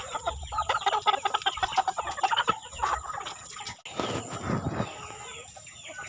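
Chickens clucking, a quick run of short overlapping calls through the first three seconds, then a short burst of noise about four seconds in.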